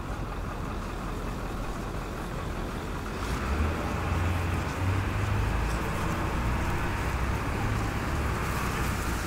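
Cinematic logo-intro sound design: a steady rushing whoosh with a deep rumble that swells about three seconds in.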